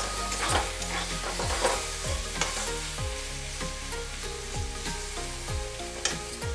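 Metal spatula stirring and scraping dry-cooked jackfruit sabzi around a metal kadhai, with the food sizzling as it fries. Background music with a steady beat plays underneath.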